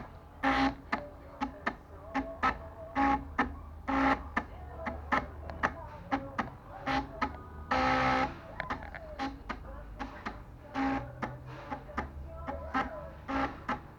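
Stepper motors of a homemade mini CNC machine making short, jerky moves while it draws out a PCB: a string of brief pitched buzzes and clicks at irregular intervals, with one longer buzz about eight seconds in.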